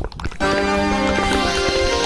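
Cartoon sound effect: a rapid run of clicks that stops about half a second in, giving way to a held musical chord of many steady tones.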